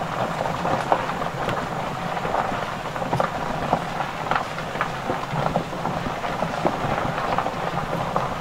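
Tyres of a small open vehicle rolling over a gravel road: a steady crunching of gravel with scattered small clicks and rattles.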